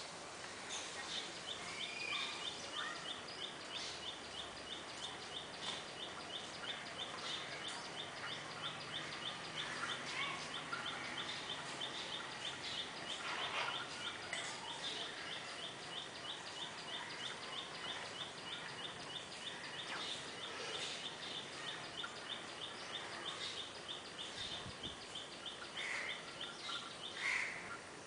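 Outdoor ambience: a high, thin chirp repeated about three times a second without a break, over a steady hiss, with a few scattered louder bird calls.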